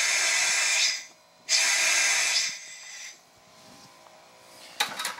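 Compressed air blowing through the drained water lines and hissing out of a bathtub spout, purging the last of the water. The hiss cuts off about a second in, comes back half a second later and fades out around three seconds in. A short knock sounds near the end.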